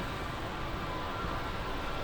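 Jet airliner engines running at a distance: a steady rushing noise, with a faint high whine coming in about halfway through.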